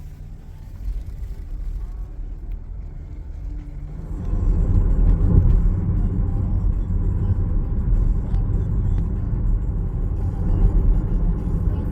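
Low rumble of a motor vehicle, growing louder and then stepping up sharply about four seconds in before holding steady.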